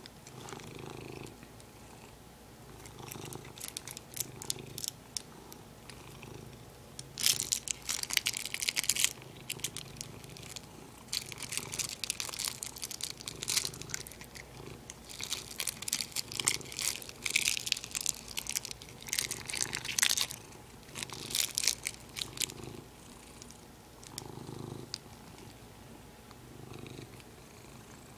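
Domestic cat purring in a slow, even pulse while it bites and chews a piece of crinkly plastic, which crackles in several bursts through the middle.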